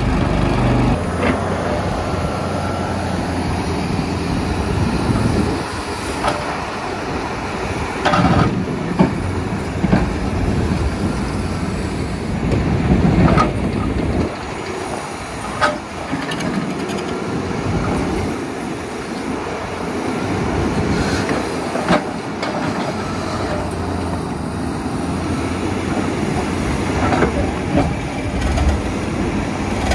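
Xcentric XR80 impact ripper on a Terex RH30F excavator hammering into rock with a steady, rattling clatter over the running diesel engine, punctuated by several sharp knocks as the rock gives.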